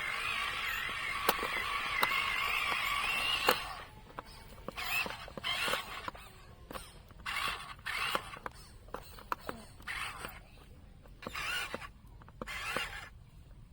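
A toy excavator's small electric motor whining, its pitch wavering slightly, with a few sharp clicks; it cuts off about three and a half seconds in. Then come short scraping bursts with scattered clicks, like the toy's plastic parts and bucket working against material.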